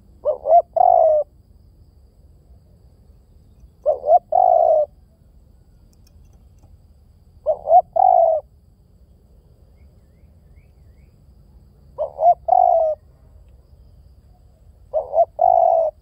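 Spotted dove cooing: five calls about every three to four seconds, each two short coos followed by a longer coo.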